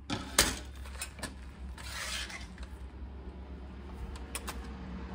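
A steel ruler clacking down on a sheet of galvanized steel, then a marker drawn along it in one short scraping stroke, with a few lighter taps of the ruler on the sheet near the end. A low steady hum runs underneath.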